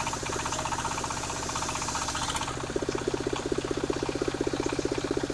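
Engine-driven portable circular sawmill running, its engine pulsing steadily and rapidly. About two and a half seconds in, the higher hiss fades and a lower, stronger hum takes over.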